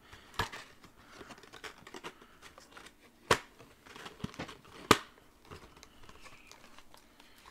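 Cardboard trading-card booster box being opened by hand: papery crinkling and rustling, with three sharp snaps, the two loudest in the middle.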